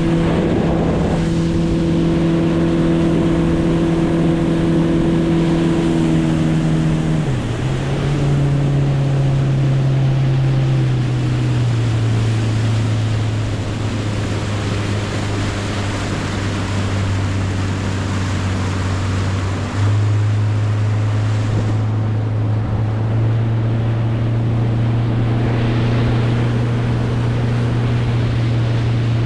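Motorboat engine running steadily over water. Its pitch drops twice, then steps up a little.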